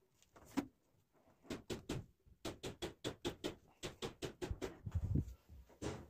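Dry wood-wool cooler-pad fibres crackling and rustling under pressing hands, in a quick run of crisp crunches about three or four a second, with a dull thump near the end.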